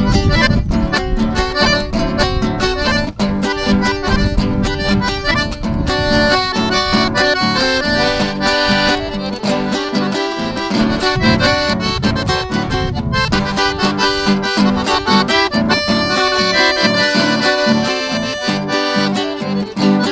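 Accordion playing a lively instrumental tune, a fast-moving melody over a steady rhythmic pulse of bass and chords.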